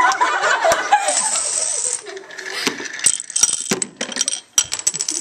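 Girls laughing loudly, with hand claps. After about three seconds it turns to a run of sharp clicks and clatters of dominoes knocking together.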